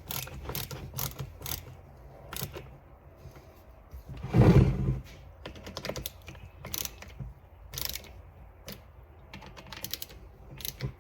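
Irregular clicks and light knocks of plastic and metal chainsaw parts being handled and fitted by hand during reassembly, with a louder, longer thump about four seconds in.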